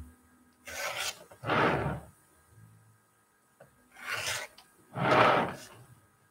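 Rotary cutter run through fabric against a cutting mat: four short cutting strokes in two pairs, about three seconds apart, the second stroke of each pair louder.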